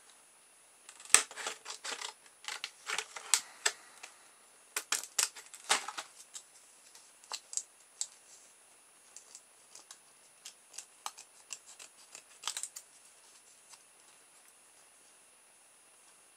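Small scissors snipping through thin, stiff clear plastic blister packaging: a run of sharp snips, densest and loudest in the first few seconds, then sparser and fainter, stopping a couple of seconds before the end.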